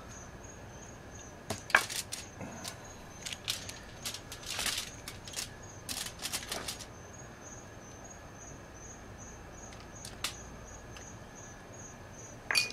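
A metal spoon clicking and aluminium foil crinkling as a butter and olive oil mix is spooned over a whole yellowtail snapper and rubbed in by hand. The sounds come in scattered bursts, starting about a second and a half in and stopping around seven seconds in.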